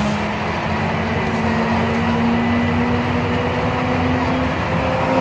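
Heavy machine's engine running steadily under load, its pitch creeping slightly upward.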